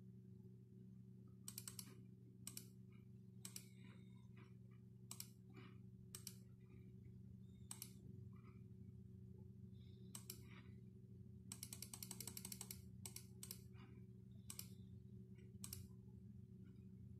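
Faint computer mouse and key clicks: scattered single clicks, with a quick run of rapid clicks about twelve seconds in, over a low steady hum.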